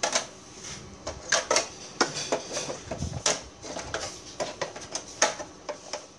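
Repeated sharp metal clicks and knocks as a butane gas canister is handled and seated in the canister compartment of a portable gas stove.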